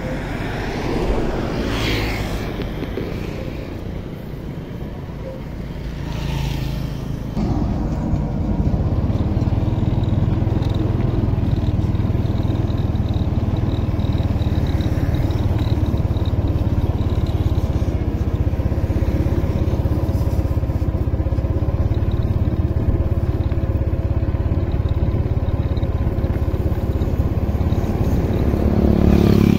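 Motorcycle engine running steadily under way, with road and wind noise, getting louder about seven seconds in. Two brief whooshes come in the first seven seconds.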